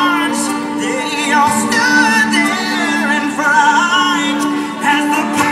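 Recorded Christian pop song with a sung vocal line over a steady held backing, played through outdoor PA loudspeakers.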